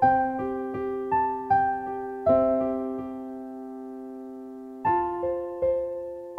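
Background music on a piano-style keyboard: a slow melody of single struck notes that fade away. About two seconds in, a chord is struck and left to die away for a couple of seconds before the notes start again.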